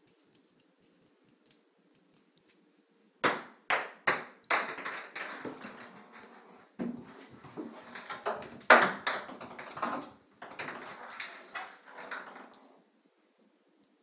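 Ping pong balls bouncing and clattering around a bathtub as a cat bats at them. A few sharp clicks come about three seconds in, then a long run of quick rattling bounces that stops a little before the end.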